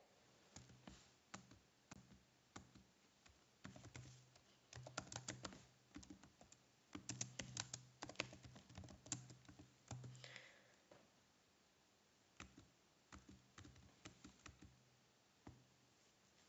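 Faint computer keyboard typing: irregular runs of keystroke clicks, busiest in the middle and thinning to scattered single keystrokes near the end.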